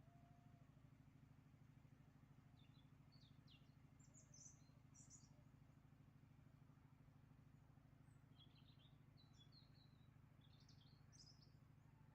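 Faint small-bird chirping in two short bursts of quick high notes, over a steady low hum; otherwise near silence.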